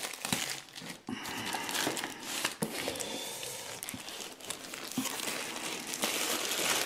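Plastic poly mailer bag crinkling and rustling as it is handled and torn open by hand, with small crackles and a brief pause about a second in.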